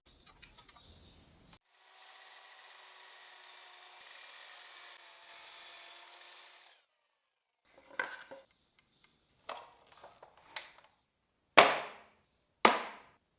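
A saw cutting pine, a faint steady noise with a slight hum lasting about five seconds, followed by several light wooden clicks and two louder knocks of wood on wood near the end as the cut pieces are handled.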